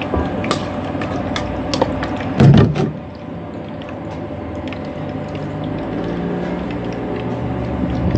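Metal tongs clicking against a steel bowl of batter and the deep fryer as battered banana pieces are dipped and dropped into the oil, over a steady sizzle of frying. A louder clatter comes about two and a half seconds in.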